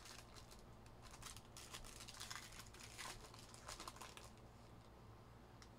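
Faint crinkling and tearing of a Panini Encased card pack's foil wrapper being opened by hand. It is a flurry of small crackles that dies away a little past four seconds in.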